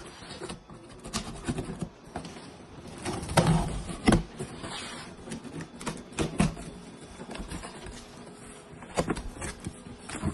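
Cardboard box being cut open with a utility knife and its flaps pulled back: irregular scraping and rustling of knife, packing tape and cardboard, with a few sharper knocks.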